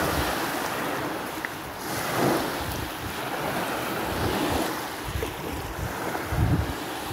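Small lake waves washing up onto a sandy beach, the wash swelling and falling about every two seconds. Wind buffets the microphone in low gusts, most strongly in the second half.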